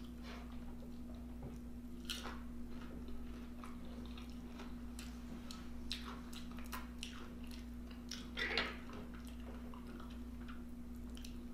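Close-miked chewing and mouth sounds of a person eating, with scattered wet clicks and smacks and one louder smack about eight and a half seconds in, over a steady low hum.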